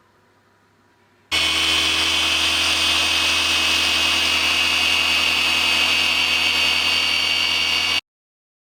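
Electric power tool motor running steadily with a high whine; it starts suddenly about a second in and cuts off abruptly near the end.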